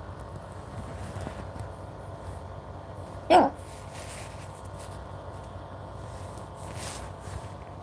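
A single short, sharp hiccup from a young girl about three seconds in, over faint steady background noise.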